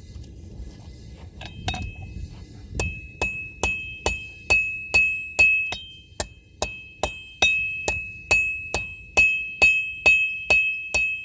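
Blacksmith's hammer striking hot steel held over the edge of the anvil, drawing out a one-sided taper with edge blows. After a couple of first taps it settles into a steady rhythm of a little over two blows a second. Each blow leaves the anvil ringing at a high pitch.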